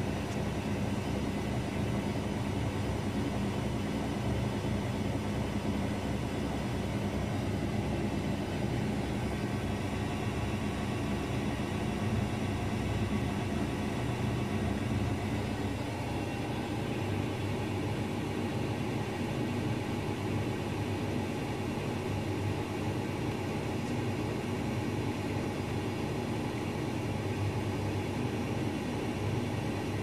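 Daewoo DWD-FT1013 front-loading washing machine on a high spin at about 600 rpm in test mode, with an unbalanced load: a steady, unchanging whir of the spinning drum and motor.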